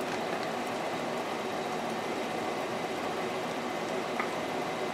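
Steady machine noise, a constant whooshing hum, from the running vacuum-forming setup, with a couple of faint light clicks.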